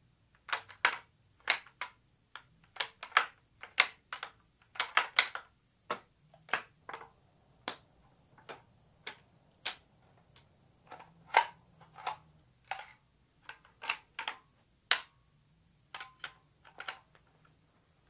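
Remington 700 bolt-action rifle's bolt being touched and handled: a long, irregular series of sharp metallic clicks and clacks, roughly one every half second, a few with a short metallic ring.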